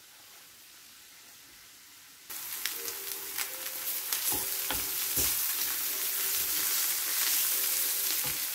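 Diced red and green peppers and onion sizzling in oil in a frying pan, stirred with a wooden spoon that scrapes and clicks against the pan. The sizzle starts suddenly about two seconds in and slowly grows louder.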